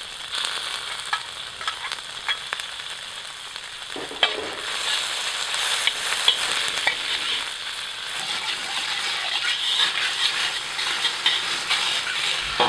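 Tofu, shallots and garlic sizzling in hot oil in a wok, with a metal wok spatula scraping and clicking against the pan as they are stir-fried. The sizzling and scraping get louder about four seconds in.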